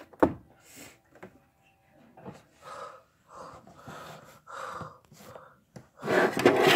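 A person breathing in short, soft, hushed puffs, about two a second. A sharp click comes just after the start and a louder rushing burst near the end.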